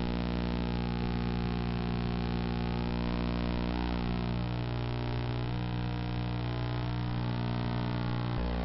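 Steady electrical hum with a buzzing stack of overtones, unchanging throughout; no voice or crowd stands out.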